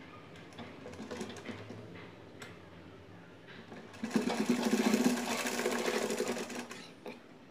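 ARUN sewing machine stitching in one short run of about three seconds, starting about halfway through, with a rapid even rhythm of needle strokes. A few light clicks come before it starts.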